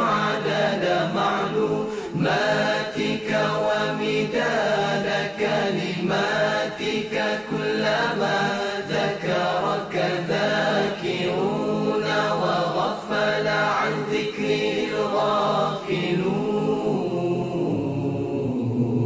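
Unaccompanied chanted nasheed: a voice holding long, wavering melodic notes without instruments. A low steady drone comes in near the end.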